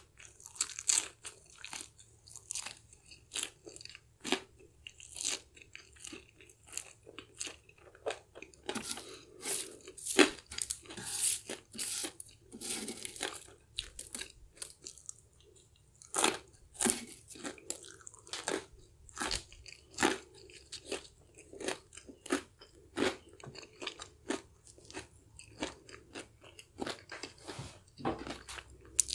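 Close-up crunching and chewing of crispy fried chicken coating, a run of sharp, irregular crunches with a quieter pause about halfway through.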